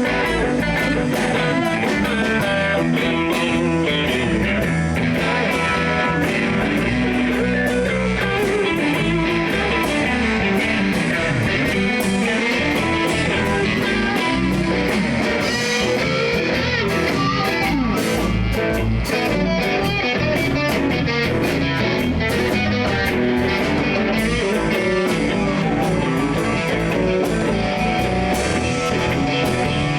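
Live blues-rock band playing: electric guitar to the fore over drums and bass, at a steady loud level.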